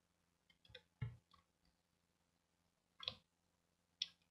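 Near silence, broken by a handful of short, faint clicks from a computer mouse and keyboard, scattered across the four seconds.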